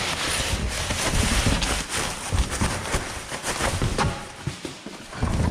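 Packing material rustling and crinkling as parts are pulled out of a box, with a few knocks and clatters of handled parts later on.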